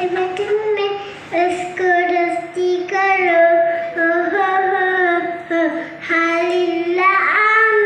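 A little girl singing solo into a microphone, without accompaniment, in short phrases of held notes with brief breaks between them.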